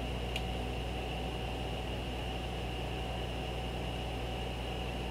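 Steady low electrical hum and hiss with a thin whine, typical of a desktop computer's fan and microphone noise, with a faint click about half a second in.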